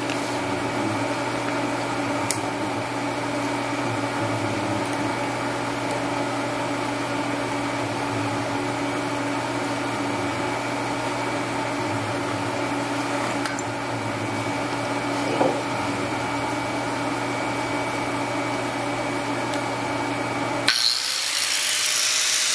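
Steady electrical machine hum. About twenty seconds in, an angle grinder with a thin cut-off wheel switches on and runs with a high-pitched whine.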